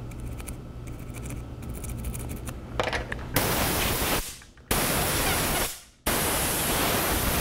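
Faint scrubbing, then from about three seconds in a jet of air blowing in long hissing bursts, each tailing off before the next, as the alcohol-washed circuit board is blown dry.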